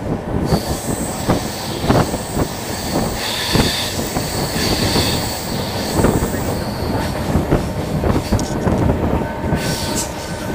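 Moving train's wheels running on the rails: a steady loud rumble with clacks over the rail joints about every second. A high wheel squeal sounds for a couple of seconds about three seconds in.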